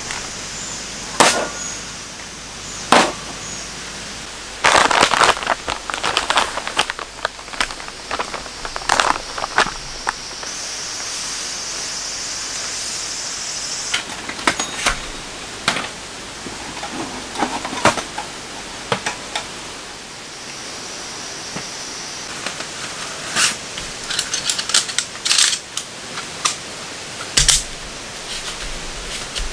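Camping gear being handled and set out: a string of sharp clacks and knocks as hard items such as gas canisters are set down, rustling from a fabric storage bag, and a folding stool's frame and seat being opened near the end. A steady hiss lies underneath throughout.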